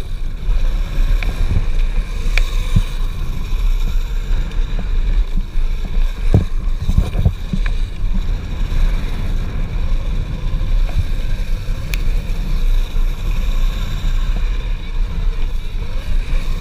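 Chain-drive electric mountainboard rolling fast over a dirt and gravel track, its wheels rumbling on the ground under heavy wind noise on the microphone. Sharp knocks from bumps come now and then, with a cluster about six to seven seconds in.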